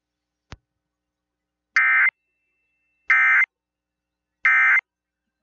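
Emergency Alert System end-of-message (EOM) code: three short bursts of harsh digital data tone, about a second apart, marking the end of the alert. A faint click comes about half a second in.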